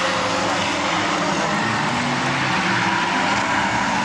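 Several race cars running around a short oval together, a steady mix of engine drones at different pitches with no one engine standing out.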